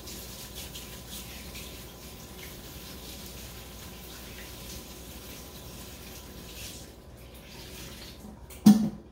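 Kitchen sink tap running steadily while hands are washed under it, an even splashing hiss. About a second before the end comes one short, loud sound, much louder than the water.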